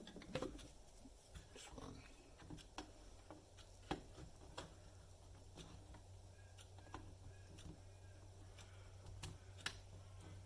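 Faint scattered clicks and light taps of small parts being handled, with the strongest clicks about four seconds in and near the end, over a low steady hum.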